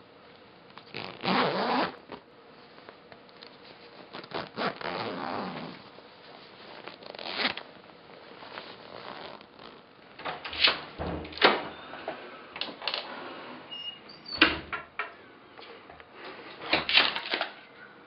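A string of separate everyday opening-and-closing handling sounds: rustles, clicks and a few thumps, among them a door being opened and closed.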